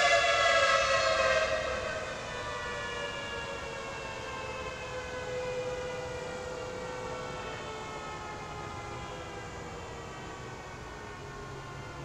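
Federal Signal Thunderbolt 1000AT outdoor warning siren winding down at the end of a full-alert test: its tone falls slowly in pitch and fades, dropping sharply in level about a second and a half in. The horn does not rotate because its rotator is broken, so the tone holds steady instead of swelling and fading.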